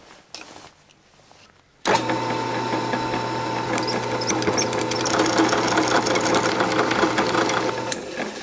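Benchtop drill press switched on about two seconds in, its motor humming steadily while a twist bit drills out a rivet in a double-pole circuit breaker's case. It is switched off near the end.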